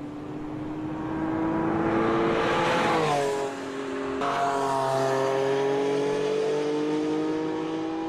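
Porsche 911 Sport Classic's 3.8-litre flat-six accelerating, its pitch rising and growing louder. The pitch drops sharply about three seconds in, and then climbs steadily again under acceleration.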